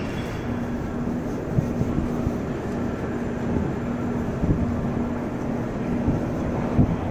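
City street noise: a constant low rumble of traffic with a low hum running through it and a few short thumps.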